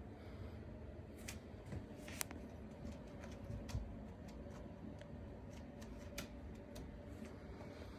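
Irregular clicks and crackles of a large basket as cats move and play in it, over a low steady room hum.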